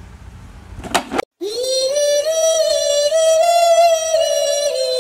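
A single voice holding one long high wailing note with a slight waver, starting about a second and a half in right after a short sound and an abrupt cut to silence.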